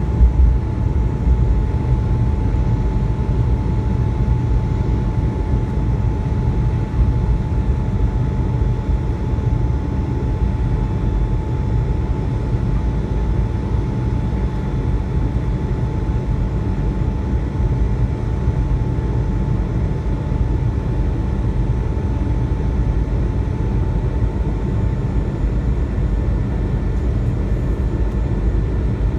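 Inside the cabin of an Airbus A220-300, its Pratt & Whitney geared turbofan engines and the airflow make a steady, deep roar, with a thin steady whine on top that does not change.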